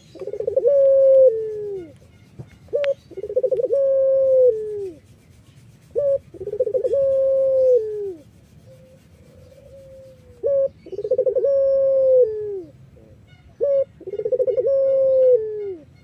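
White domestic dove of the 'puter Irak' song type cooing five times, about every three seconds. Each call is a short note followed by a longer rolling coo that falls in pitch at its end.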